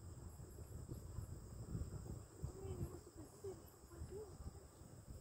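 Faint insects chirping and buzzing high up, with short repeated chirps over a steady whine, above a low rumble.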